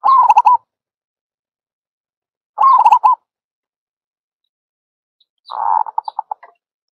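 Recorded zebra dove call used as a bird-catching lure. Two short rolling coos about two and a half seconds apart, then, about five and a half seconds in, a longer call that breaks into a string of quick clipped notes.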